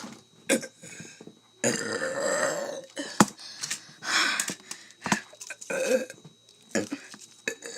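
A man burping deliberately, over and over: a long burp about two seconds in, another around four seconds, then shorter ones, with a few short sharp clicks in between.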